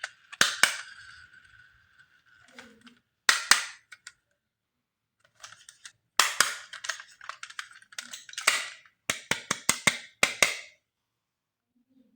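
Sharp plastic clicks and snaps from a toy being handled, in several quick clusters. At the start a toy's electronic tone fades out within the first second or so.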